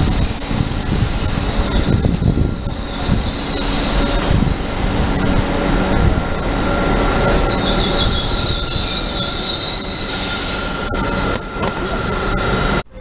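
A train running on the rails with a high-pitched wheel squeal over a low rumble, the squeal growing loudest in the second half.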